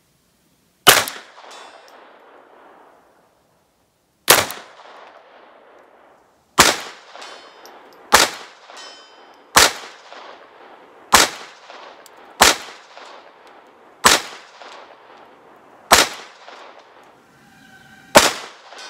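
Ruger LCP II .22 LR pistol firing ten shots, one about every second and a half after a longer pause between the first two, each crack trailing off in a short echo.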